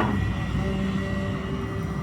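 XCMG XE215 excavator's diesel engine running steadily, a low rumble with a thin high whine over it.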